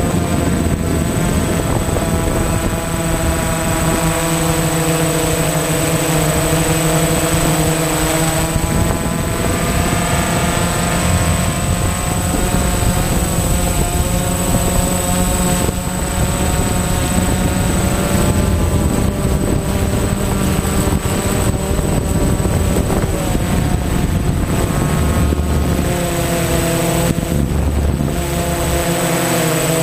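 DJI Phantom FC40 quadcopter's electric motors and propellers whining in flight, the pitch drifting up and down as the drone speeds up and slows. A thin, steady high tone runs above it.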